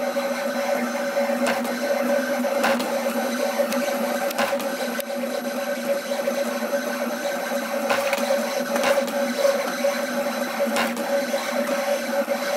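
USCutter SC2 vinyl cutter/plotter drawing with a pen: its stepper motors whine steadily as the carriage and paper rollers move, with occasional sharp clicks.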